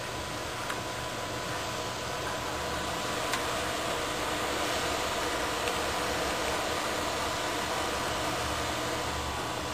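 Steady background hiss with a low hum underneath and a faint steady tone, broken only by a faint click or two.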